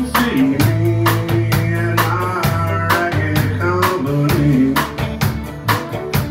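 Live country-rock band playing an up-tempo song on electric and acoustic guitars, fiddle, bass guitar and drum kit, with a steady drum beat.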